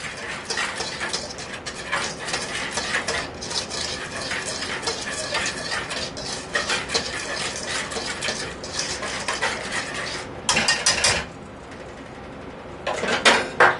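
Wire whisk stirring a dry flour mixture in a bowl: a fast, continuous run of light clicks and scrapes against the bowl for about ten seconds, then two short louder bursts of whisking near the end.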